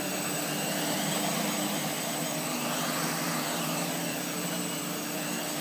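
Homemade 3D-printed hexacopter's six brushless motors and propellers running steadily as it flies low, the pitch shifting slightly with the throttle.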